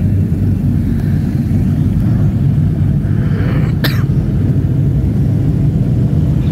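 Fishing boat engine running with a steady low rumble, heard from on board. There is one short sharp sound about four seconds in.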